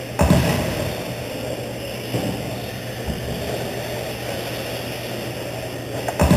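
Electric radio-controlled stadium trucks racing on an indoor dirt track: a steady whir of motors and tyres, broken by a few sharp thumps, the loudest just after the start and near the end.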